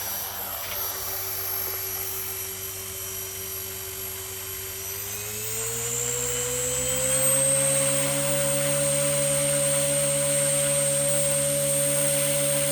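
HK-250GT (T-Rex 250 clone) electric RC helicopter's motor and rotor whining steadily, rising in pitch about five seconds in as throttle comes up, then holding a higher steady pitch. The helicopter only shuffles on the grass without lifting off, which the owner puts down to a throttle curve capped too low at about 60%.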